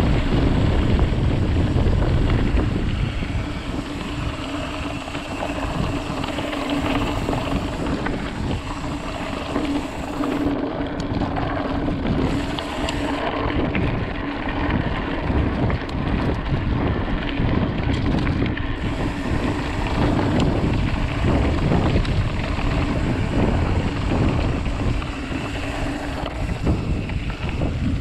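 Mountain bike riding a dirt singletrack, the tyres and frame rattling over the rough trail while wind buffets the camera microphone. A steady hum runs under it for much of the ride.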